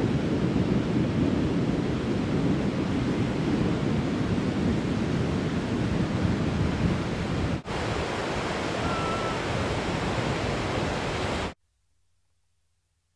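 Rough North Sea surf breaking on a sandy beach, a steady rush mixed with wind on the microphone. It has a short break about seven and a half seconds in and stops abruptly near the end.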